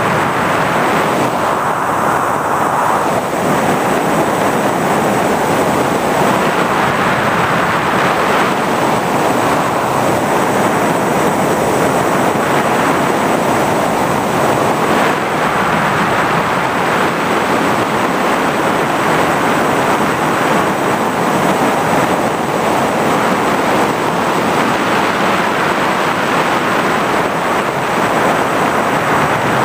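Steady, loud rushing noise of an FPV aircraft in flight, with airflow and motor and propeller noise picked up by the onboard camera, unchanging throughout.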